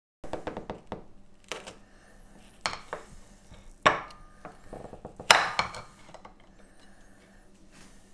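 Knife cutting through a chocolate-topped cheesecake on a plate: a series of sharp cracks and knocks as the blade breaks the chocolate layer and taps the plate, loudest about four and five seconds in.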